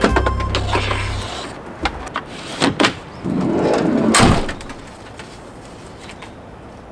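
A camper van door being shut: a few clicks and knocks, then a short rush and a slam about four seconds in.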